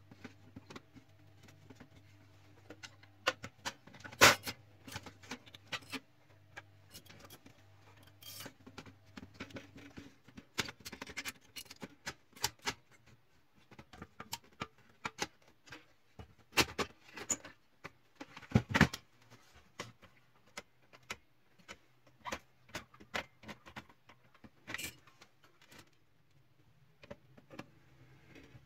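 Irregular clicks, taps and knocks of plastic and metal printer parts being handled while the lubricated gear section of an HP LaserJet 3055 MFP is closed back up, with a loud knock about four seconds in and another around nineteen seconds. A low steady hum runs underneath, dropping out about ten seconds in and coming back later.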